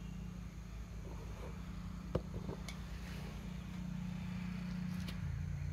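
A few sharp metallic clicks and knocks from a break-barrel air rifle being handled, the sharpest about two seconds in. A steady low hum runs underneath.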